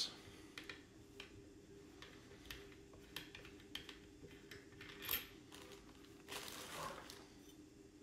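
Light clicks and taps of the multi-tool's blade clamp and the blade being handled and fitted, the sharpest click about five seconds in, with a short rustle near the end over a faint steady hum.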